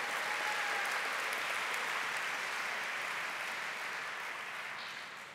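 Large audience applauding steadily, the clapping thinning and fading away near the end.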